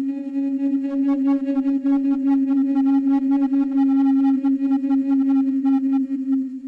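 One long held flute note, wavering quickly throughout, that begins to die away near the end.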